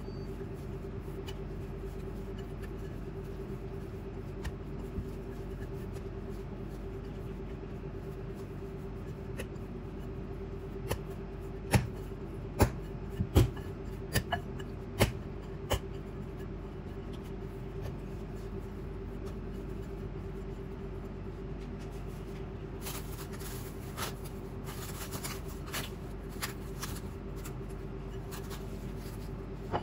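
Hands working bread dough in a ceramic bowl. About halfway there are several sharp knocks against the bowl, then plastic cling wrap crinkles as it is stretched over the bowl near the end, all over a steady low hum.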